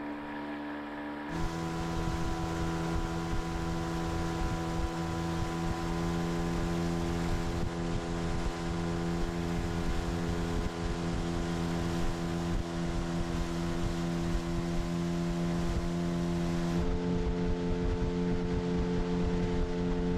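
9.9 hp outboard motor running at a steady speed with a boat under way, over a steady hiss. The engine's pitch jumps abruptly about a second in and again near the end.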